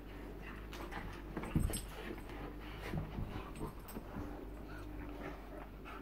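Two bull terriers play-wrestling on carpet: the dogs' breathing and scuffling, with a thump about one and a half seconds in.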